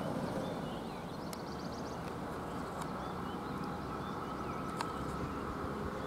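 Eicher truck's diesel engine running as the truck approaches slowly, a low rumble that grows a little in the second half. Birds chirp in the background.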